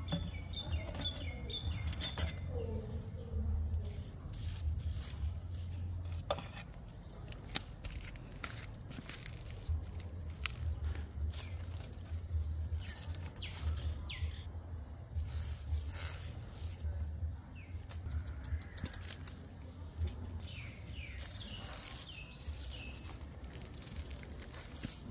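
Outdoor ambience: a steady low rumble of wind on the microphone, with leaves rustling and clicking as a cat paws and bites at a plant, and short bird chirps near the start and again near the end.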